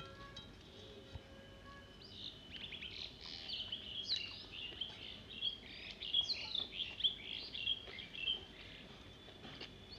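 A bird chirping and twittering in a quick, busy string of short high notes, starting about two seconds in and stopping about a second and a half before the end.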